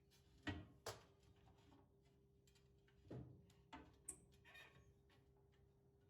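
A few light knocks and clatters of household objects being handled and set down, with a brief high squeak about four seconds in, over a faint steady hum.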